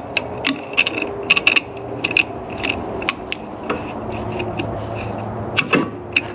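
Hand ratchet wrench clicking in short irregular runs as bolts are turned. A steady low hum sits underneath.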